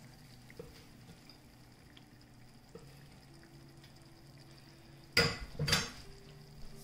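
Pot of water with sourdough dumplings simmering quietly on the stove, with a faint steady hum. About five seconds in, two loud sharp clinks of kitchenware, half a second apart.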